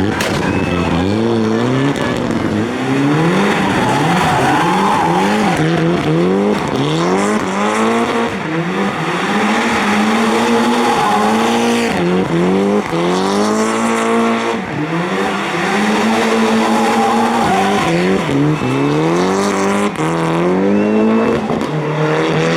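Rally car engine revving hard. Its pitch climbs and drops again and again as the car accelerates, changes gear and lifts off.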